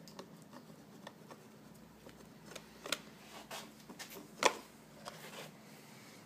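Scattered light clicks and taps as a ceramic tile is slid and set into place against plastic tile-leveling clips. One sharp tap about four and a half seconds in is the loudest, with a smaller one about three seconds in.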